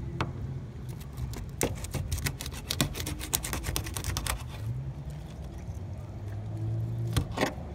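Knife cutting into a moonfish: a quick run of sharp clicks and crackles lasting about three seconds, then two more clicks near the end, over a steady low hum.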